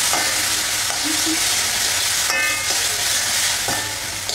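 Food sizzling in a hot wok over a gas flame while a metal ladle stirs it, scraping and clinking against the pan a few times.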